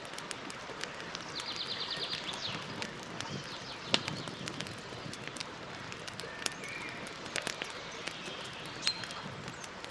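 Campfire crackling, with many small snaps and two sharp louder pops, one about four seconds in and one near the end. A bird gives a rapid high trill about a second and a half in and a short chirp later.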